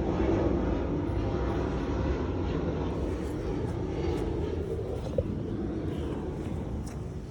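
Steady low rumbling background noise that slowly fades, with a single faint click about five seconds in.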